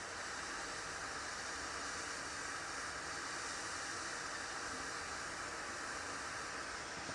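Hot air rework station blowing a steady hiss of hot air, heating the solder joints of a fuse holder on a circuit board to melt it out.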